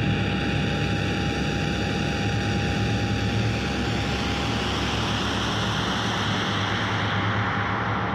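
Electronic music with no beat: a sustained synthesizer drone under a wash of white noise and one steady high tone. The brightest part of the noise fades away near the end, like a filter closing.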